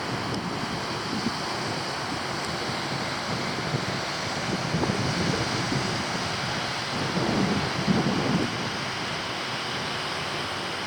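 Sea surf washing onto a beach, mixed with wind noise on the microphone; the sound swells a little about halfway through and again near the end.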